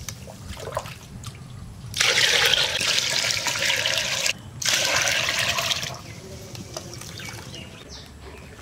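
Water poured from a plastic mug into an aluminium pot of rice grains, splashing onto the rice in two pours: the first about two seconds in and lasting about two seconds, the second a shorter one just after.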